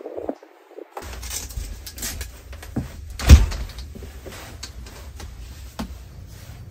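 Clicks and knocks of a hinged window in a wooden DIY truck camper being unlatched and pushed open, with one louder thump about three seconds in.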